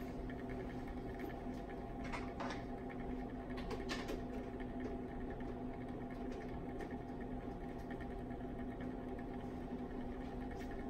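Steady machine hum in a lab room, with a few faint ticks about two and four seconds in.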